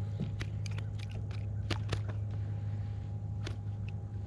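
A steady low hum, with light clicks and taps scattered through.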